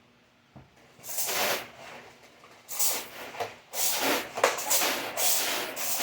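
X-Shot toy water blaster firing a series of short spurts of water, about five hissing sprays starting about a second in and coming closer together near the end.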